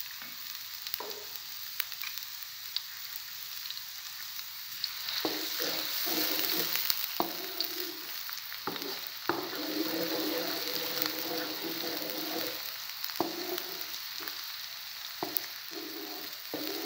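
Finely chopped onions sizzling in hot oil in a pan. From about five seconds in, a wooden spatula stirs them, scraping and knocking against the pan.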